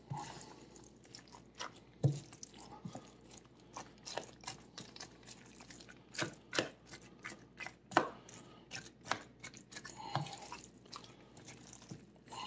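A spoon stirring shredded chicken, softened tortilla chips and gravy in a plastic mixing bowl: irregular wet squishes and sharp clicks of the spoon against the bowl, the loudest about two seconds and eight seconds in.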